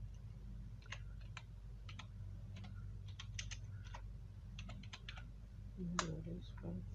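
Typing on a computer keyboard: a quick, irregular run of key presses, with one louder click about six seconds in, over a steady low electrical hum.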